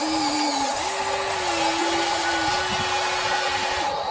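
Huina RC excavator's electric motors whining as the boom lifts and the upper body swings, over a steady hiss; the motor pitch steps up and down several times as the movements change.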